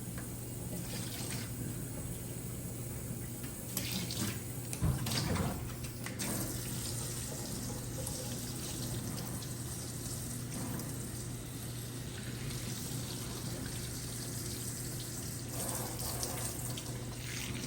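Tap water running steadily into a sink while a puppy is washed under it, with a few louder, more uneven splashing stretches about four to six seconds in.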